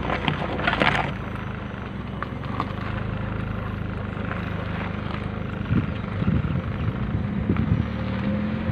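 A vehicle engine running steadily as it drives along a rough dirt track. Rattles and knocks from the bumps come in a cluster about a second in and again about six to eight seconds in.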